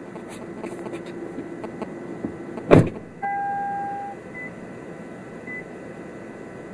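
Inside a car: a sharp knock a little under three seconds in, then a steady electronic warning tone for about a second, followed by faint short dashboard beeps about once a second.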